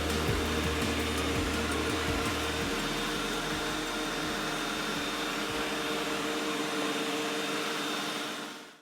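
iRobot Roomba 865 robot vacuum running, a steady whir of its suction motor and brushes with a few low knocks in the first few seconds, fading out near the end.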